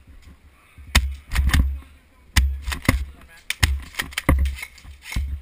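Irregular series of sharp cracks, each with a low thud, coming about one or two a second.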